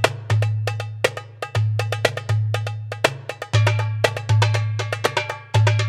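Background music: a held low bass note under an uneven run of sharp percussive knocks, some ringing briefly like wood block or cowbell.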